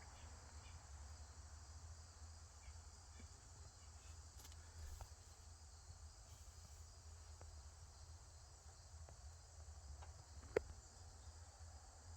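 Near silence: a faint steady high hiss and low hum, with a few faint ticks and one sharp click about ten and a half seconds in.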